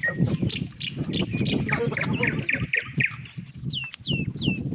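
Bird calls: a quick run of about six short repeated notes, then three sharply down-slurred whistles near the end.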